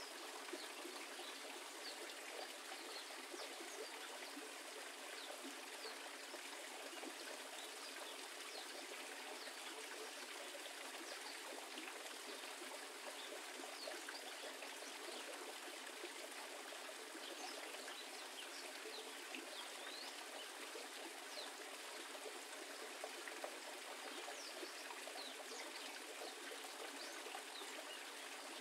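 Running water trickling steadily, with many small splashes and droplets throughout, like a small garden waterfall spilling into a pond.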